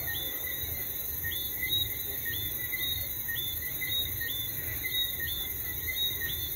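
Night-time chorus of crickets and other insects: a steady high shrill with short chirps repeating about once or twice a second, over a low rumble.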